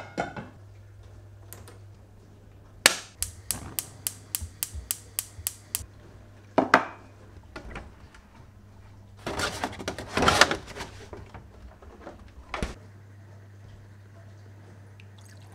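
A pan is set down on the grate of a gas hob. Then the hob's spark igniter clicks rapidly, about a dozen clicks at roughly four a second. Later a fridge door thuds open, a plastic milk bottle is rattled out of the door shelf, and the door shuts with a click.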